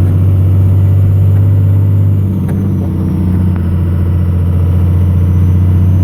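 Cummins 24-valve 5.9 L inline-six diesel pulling under load in gear, heard from inside the cab as a steady low drone with an even combustion pulse, easing slightly about two and a half seconds in. The owner is holding it under load to bring out a suspected engine knock.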